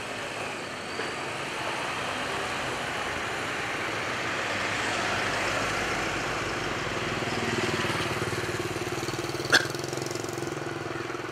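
Car traffic on a town street: a steady rush of passing cars, with a low engine hum that comes in about halfway through. A single sharp click sounds near the end.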